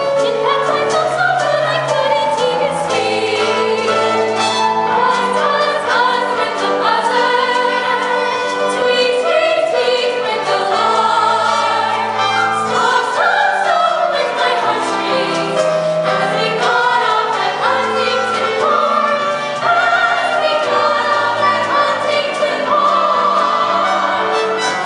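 Musical-theatre ensemble singing together as a chorus, with accompaniment underneath.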